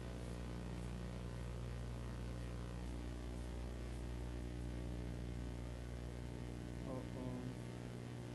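Steady low electrical mains hum with faint background hiss, and a faint voice briefly about seven seconds in.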